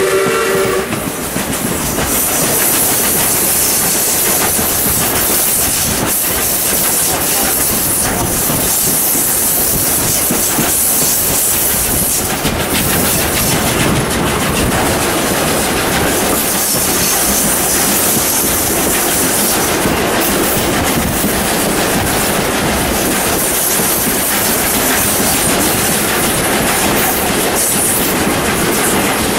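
Steam-hauled wooden passenger train heard from an open carriage window: wheels clattering over the rail joints under a steady rushing noise. The locomotive's steam whistle cuts off just after the start.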